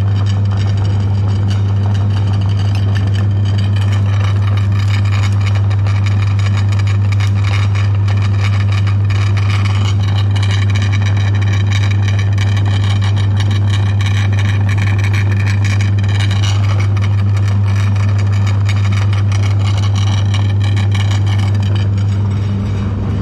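Electric meat grinder running under load as it grinds frozen ice cream, a loud steady motor hum. It dies away near the end as the machine is switched off.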